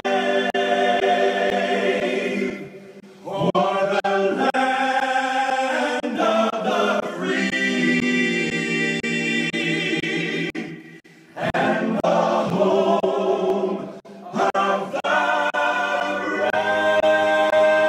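Choir singing, with brief breaks between phrases.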